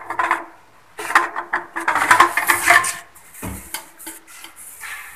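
Plastic plumbing parts of a toilet outlet fitting clicking and clattering as they are handled and fitted, with a short dull thump about three and a half seconds in.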